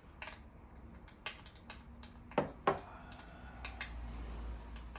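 A man sipping a drink from a cup and handling it: scattered soft clicks, with two louder, sharper sounds about a third of a second apart about halfway through.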